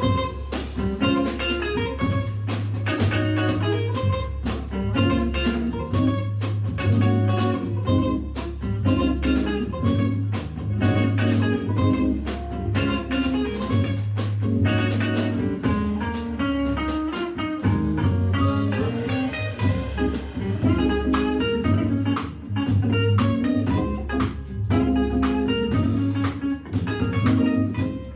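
Jazz organ trio playing live: electric guitar, Hammond B3 organ and drum kit, with a steady organ bass line underneath and drums keeping time.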